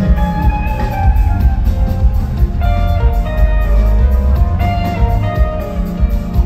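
Rock band playing live: guitar lines over bass and drums.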